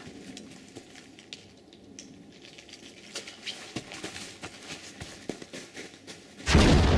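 Scattered light clicks and crackles, then near the end a sudden loud explosion, an edited-in explosion sound effect, that keeps rumbling on.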